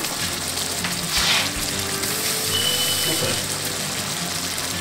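Pan of chicken livers in sauce simmering and sizzling steadily on the stove, the hiss briefly a little louder about a second in. Faint music-like tones sound over it.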